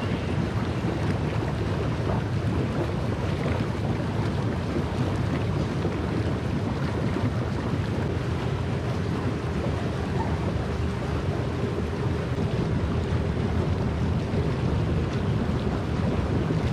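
Jacuzzi jets churning the water: a steady rush of bubbling, foaming water.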